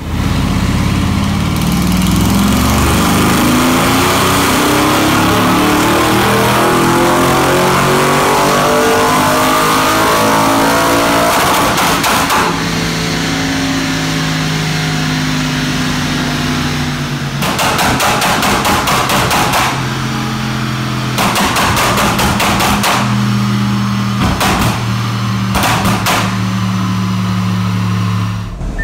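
Audi RS6's 4.0 TFSI twin-turbo V8 (EA824) running on a chassis dynamometer, revving up in a long pull whose pitch climbs for about twelve seconds. It then holds at a steady engine note, broken several times by clusters of rapid crackles and pops from the exhaust, an effect added by the stage 2 tune.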